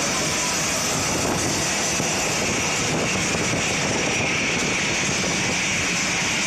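AirAsia jet airliner's engines running: a steady, dense rushing noise with a high whine that grows stronger about halfway through.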